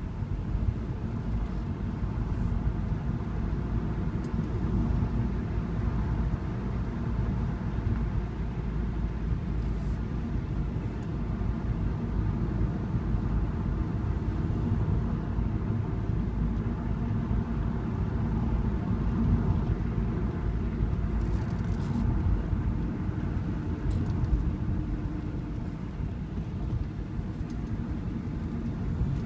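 Car driving at a steady pace, its engine and tyre noise making a continuous low rumble, with a few faint ticks.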